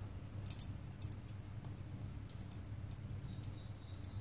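Faint light ticks and drips as a small, freshly quenched copper ingot is lifted by hand out of a steel pot of water, over a steady low hum.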